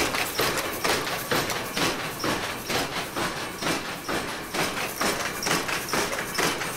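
Power loom running: a steady mechanical clatter of sharp knocks about three a second as the shuttle is thrown back and forth across the cloth.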